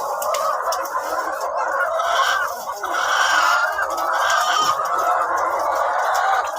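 A flock of chickens clucking and calling continuously, many birds at once and overlapping.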